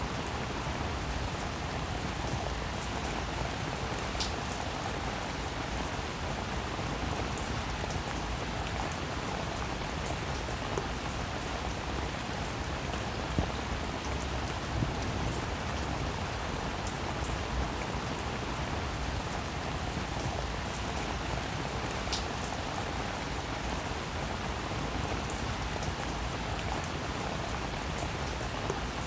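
Steady rain falling, with individual drops clicking sharply here and there over the even hiss.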